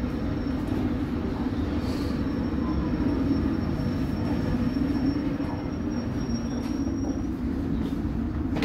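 A London Underground District line S7 Stock train carriage running along the line, heard from inside: a steady rumble of wheels and running gear, with a thin high whine that stops about seven seconds in.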